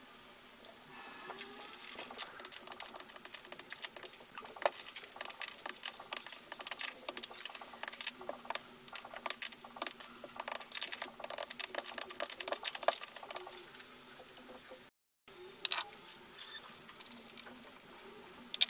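Rapid, irregular clicking and tapping of ratchet wrenches and hand tools on engine metal, over a faint steady low hum. The sound drops out briefly about three-quarters of the way through.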